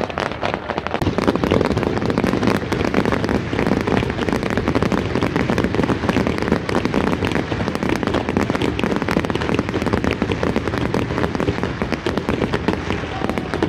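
Aerial fireworks display: a dense, unbroken barrage of rapid crackles and bangs from many shells bursting at once.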